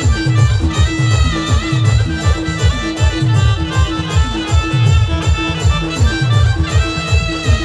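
Village band playing traditional folk dance music: heavy bass drum strokes in a fast, steady beat, a short note repeated on every beat, and a melody line weaving above.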